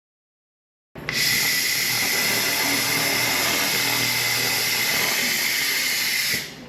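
Laser cleaning machine burning rust off sheet steel: a loud, steady hiss with a high whine, starting suddenly about a second in and cutting off near the end.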